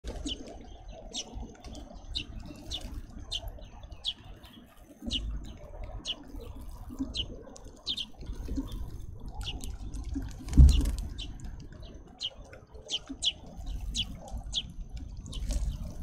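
Small songbirds chirping in quick, short, high calls, several a second, over a low steady rumble. About ten and a half seconds in comes a single dull thump, the loudest sound.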